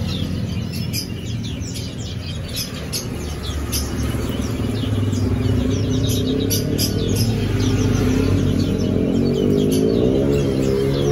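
Small birds chirping busily throughout, over a steady low hum. A pitched drone that wavers up and down comes in and grows louder from about eight seconds in.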